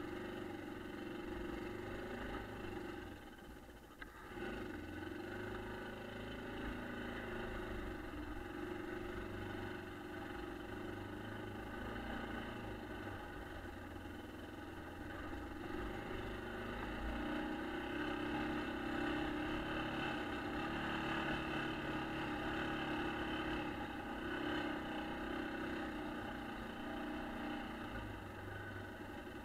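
A 1996 Yamaha Kodiak ATV's single-cylinder four-stroke engine running under throttle on a snowy trail. The note dips briefly about four seconds in and grows louder for a stretch in the second half.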